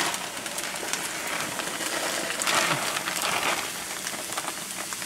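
Browned ground beef sizzling in a cast-iron skillet while frozen cooked rice is poured in from a plastic bag, the grains pattering onto the hot meat. The noise swells about two and a half seconds in.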